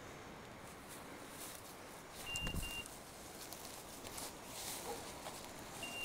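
Hunting dog's beeper collar giving double beeps: a pair of short, high electronic tones a little over 2 seconds in and again at the end, about 3.5 seconds apart. Between them, footsteps crunch through dry leaf litter, with a low thump about 2.5 seconds in.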